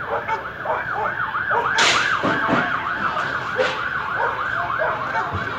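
Police siren wailing in a fast rising-and-falling yelp, about three cycles a second, with people's voices underneath.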